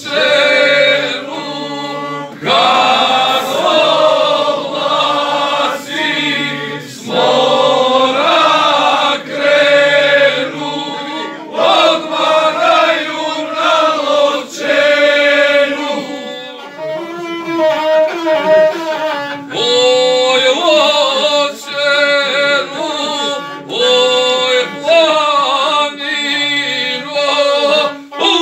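A male guslar singing an epic song to his own accompaniment on the gusle, a one-string bowed folk fiddle.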